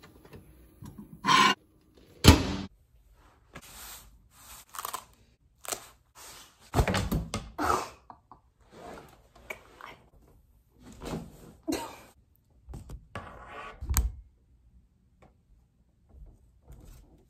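Handling sounds of a folding umbrella being worked open and held: scattered rustles, clicks and knocks, with one loud sharp thunk about two seconds in and a low thump near the end.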